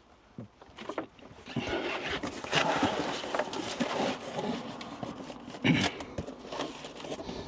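Cardboard box being opened and handled: flaps folded back with rustling and scraping of cardboard and packing, scattered clicks, and a single sharp knock near the end.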